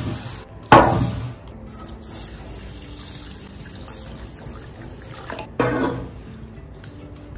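A sharp knock just under a second in. Then water is poured in a steady stream from a steel pot into a glass bowl of basmati rice, and near the end comes a splashing swish as a hand plunges in to wash the rice.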